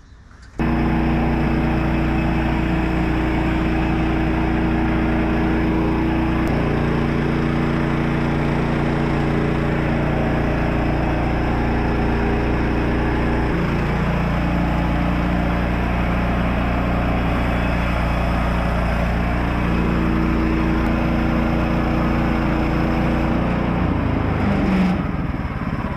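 Gasoline engine of a Woodland Mills portable bandsaw mill running hard while the band blade cuts along a Douglas fir log. It comes in suddenly, holds steady with its pitch shifting a few times under the changing load, and eases off near the end.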